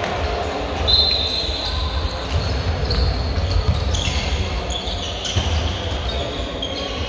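Handball game in a sports hall: athletic shoes squeaking in short high chirps on the wooden court, with the ball bouncing and thudding, over a low steady rumble.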